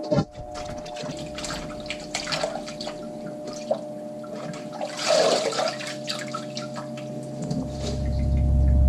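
Water splashing and trickling as leafy greens are rinsed by hand in a sink, with scattered small clicks and knocks. A low rumble swells up near the end.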